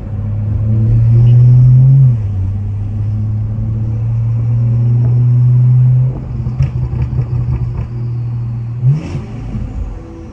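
Tuned BMW B58 turbocharged 3.0 L inline-six with a catless downpipe, accelerating hard: the revs climb, drop at a gear change about two seconds in, and the engine pulls again until the driver lifts off about six seconds in, followed by a quick run of crackles. Near the end a short rev blip rises and falls.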